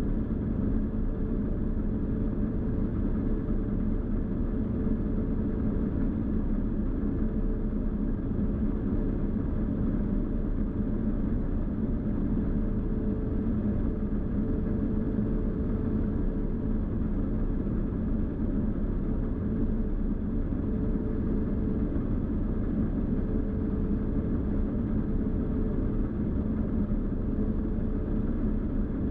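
New Holland TX66 combine harvester running steadily under load while cutting wheat, heard from inside the cab: a constant drone with a steady hum.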